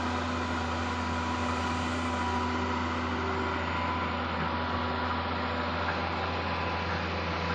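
Excavator's diesel engine running at a steady speed: a low hum with a faint high whine over it.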